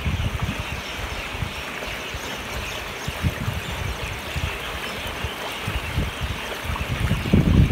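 Shallow rocky mountain stream rushing steadily, with irregular low gusts of wind buffeting the microphone.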